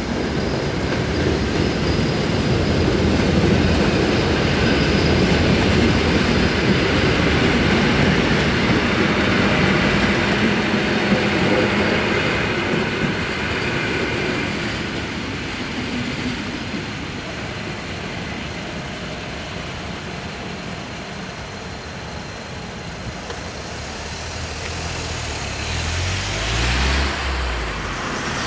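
A train running past on the track at a railway level crossing, loudest over the first dozen seconds and then fading away. Near the end a car drives over the crossing, its engine swelling briefly.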